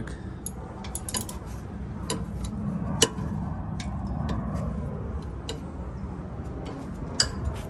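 Hand wrench working the bolts on a Nissan 350Z's rear brake caliper, giving short metallic clicks at uneven spacing, the loudest about three seconds in, over a low steady background hum.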